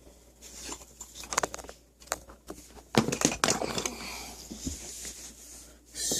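Objects being handled and set down: scattered clicks and knocks, a louder clatter about three seconds in followed by rustling, and another short burst of handling noise near the end.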